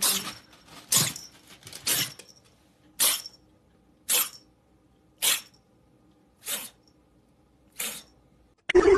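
Kitten sneezing over and over, eight short sneezes about a second apart, coming a little further apart toward the end.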